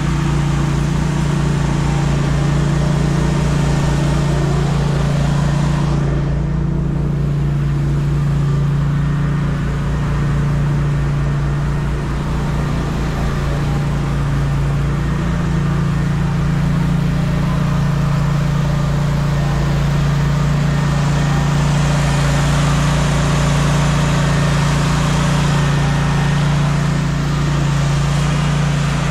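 Core aerator's small gasoline engine running steadily, its note shifting slightly about halfway through.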